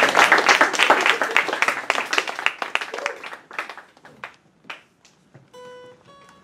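Audience applause that dies away over the first four seconds or so. Near the end, an acoustic guitar begins picking single notes.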